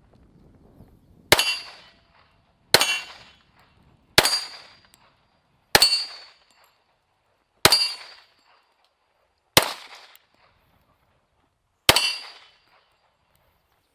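Seven .45 ACP pistol shots from a Kimber Custom Cop 2 1911, fired one at a time at a slow, deliberate pace, each a sharp crack with a short ring-off, the gaps growing longer toward the end. The magazine feeds every round without a malfunction.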